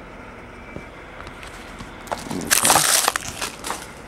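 Plastic packaging being crinkled and torn open, a loud crackle of about a second starting some two seconds in, followed by a few smaller rustles.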